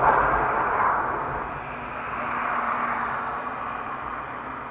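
Steady rushing noise of a car driving, tyres and engine, loudest at the start and slowly easing off.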